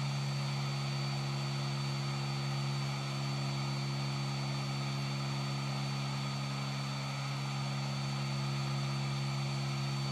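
Hot air gun of an 8586D SMD rework station, its fan blowing steadily with a low hum over an airy hiss. The gun is resting in its cradle with the air temperature reading falling, so the fan is running in cool-down mode to bring the heater down.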